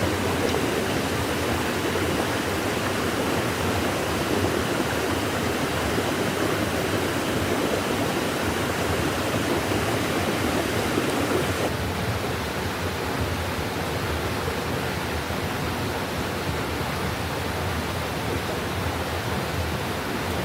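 Steady rushing noise of running water, with no distinct events; it drops and thins abruptly about twelve seconds in.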